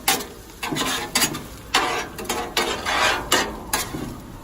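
Fried potatoes and onions being scraped and turned on a Blackstone flat-top griddle: a run of quick, irregular scrapes with frying sizzle underneath.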